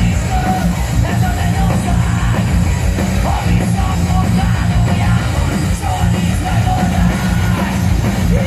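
Heavy rock band playing live and loud through the concert PA, with yelled vocals over the band, heard from within the crowd.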